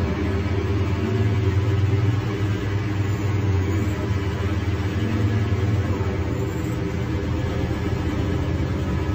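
Scania DC09 five-cylinder in-line diesel of a K310 articulated city bus, heard from inside the bus, running with a steady low drone. It is a little louder for the first few seconds, then eases slightly.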